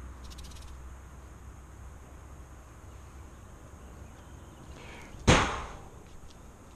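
A sudden loud whoosh, rushing across the whole range, a little past five seconds in, fading within about a second, over a steady low rumble. A few faint, quick high ticks sound shortly after the start.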